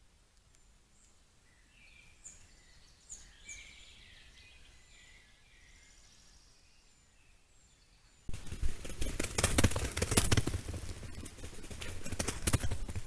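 Faint birdsong, a few short chirps, over a quiet forest. About eight seconds in, a sudden loud, irregular crunching and rustling of dry fallen leaves begins as a grey wolf trots through the leaf litter close to the trail camera.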